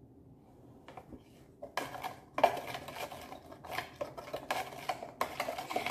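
A spoon stirring lemonade in a plastic pitcher, with irregular clinks and knocks against the sides starting almost two seconds in. The stirring dissolves the sugar just added.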